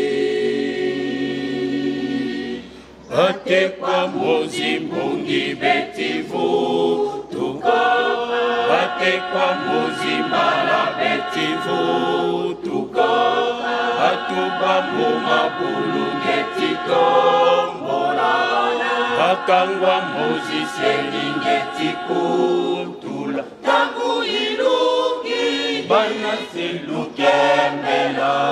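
A church choir singing a hymn together, many voices on held notes, with a short break about three seconds in.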